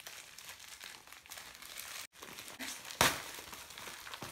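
Plastic mailer bag crinkling as it is handled and pulled open, with one loud, sharp crackle of the plastic about three seconds in.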